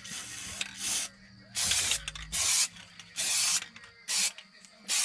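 Aerosol spray-paint can sprayed onto the water of a hydro-dipping tank in about six short bursts, each under a second long, with pauses between them.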